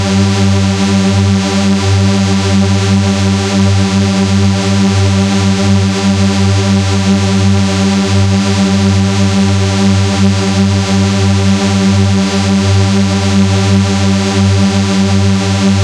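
A loud, steady, distorted electronic drone held on one low pitch, buzzing without any change.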